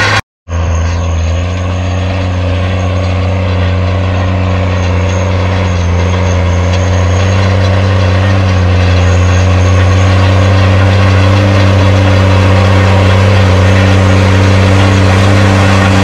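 Case 155 tractor engine working hard and steady under load as it pulls a Cambridge roll across ploughed ground, a low even drone. The sound cuts out briefly just after the start, then runs on and grows slightly louder near the end.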